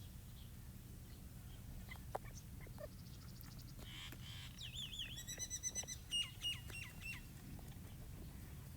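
Young francolin (teetar partridge) calling: a quick run of short, high chirping calls, some wavering in pitch, about four to seven seconds in, over a low steady hum.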